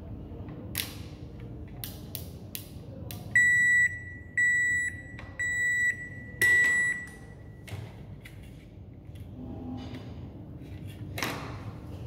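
Haier front-load washing machine control board's buzzer sounding four high-pitched beeps, each about half a second long and about a second apart, with the last one fading out. A few sharp clicks come just before the beeps, and a single click comes near the end.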